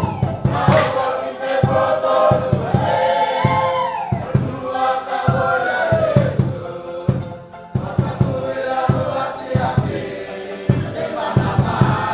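A group of voices singing and chanting together over a steady drum beat.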